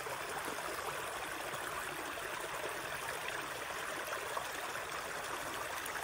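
Small rocky creek running over stone ledges and between stones: a steady rush of water.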